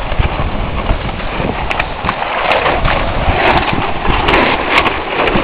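Storm wind and rain in a steady, loud rush, with wind buffeting the microphone and scattered sharp ticks throughout.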